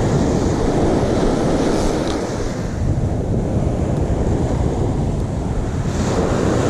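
Surf washing on a sandy beach, with wind buffeting the microphone in a steady rumbling noise.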